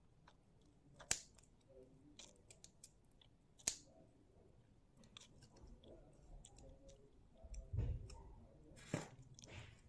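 Scissors snipping thin clear plastic: a sharp snip about a second in, another near four seconds and another near nine seconds, with lighter clicks of the blades between. A soft low thump just before eight seconds.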